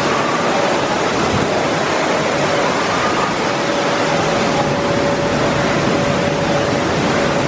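Steady rush of falling water, an even, unbroken roar with no splashes or breaks standing out.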